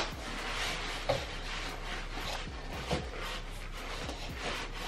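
Styrofoam packing scraping and rubbing against the inside of a cardboard box as it is worked loose, with two light knocks about one and three seconds in.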